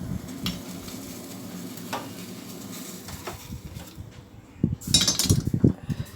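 Steel kitchen utensils clinking and clattering as the boiled kashayam is strained. A few faint clicks over a low steady hum come first, then a louder clatter about five seconds in.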